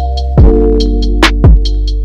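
Background electronic music: sustained synth chords over a drum-machine beat with kick drum hits and ticking hi-hats.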